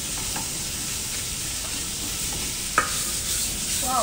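Lean minced beef sizzling in butter and olive oil in a frying pan while a spatula stirs and scrapes it, browning the mince as the first stage of a ragù bolognese. A single sharp knock of the spatula on the pan comes near the three-second mark.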